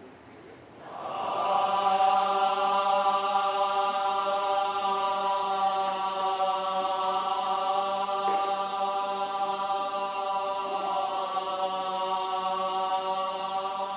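Buddhist chanting held as one long, steady note rich in overtones. It swells in about a second in and carries on unbroken.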